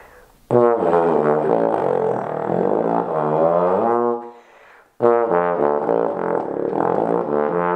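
Bass trombone with valve attachments playing two long phrases in the pedal and sub-pedal register, pushing as low as it can go. The first phrase's pitch slides down and back up, with a short break about halfway through before the second phrase.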